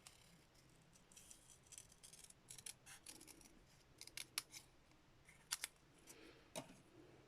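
Scissors snipping through black cardstock in faint, irregular cuts, cutting out a white heat-embossed stamped image.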